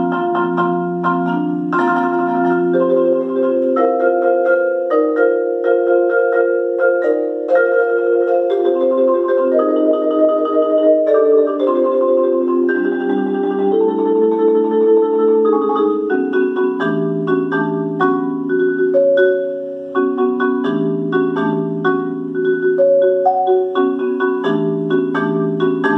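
Solo marimba played with four mallets: rolled chords held over a low bass line, the harmony changing every second or two. The volume dips briefly about 20 seconds in.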